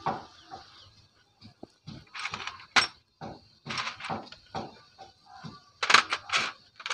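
Small steel nuts being handled and threaded by hand onto the crankcase-cover studs of a Honda CD-70 engine: a run of short, irregular metal clicks and scraping rattles, louder about two to three seconds in and again near the end.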